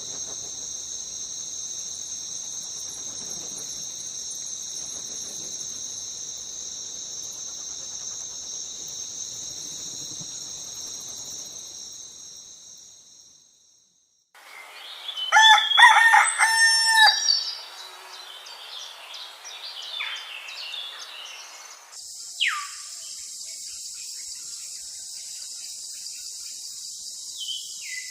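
Crickets or other insects chirring in a steady high drone, which fades out about halfway through. After a brief silence a rooster crows loudly, with some chirping around it, and then the steady high insect drone starts again, crossed by a couple of short falling whistles.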